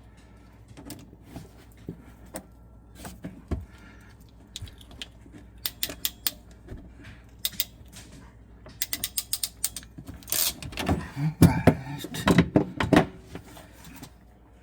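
Metal hand tools clicking and rattling in runs of quick clicks, then several louder knocks and clatters near the end.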